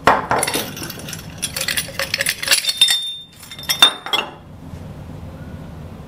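Aluminium camlock coupling being worked by hand: a run of metal clicks and clinks as the cam arms are swung and the adaptor is seated, with a brief ringing note near the end, stopping about four seconds in.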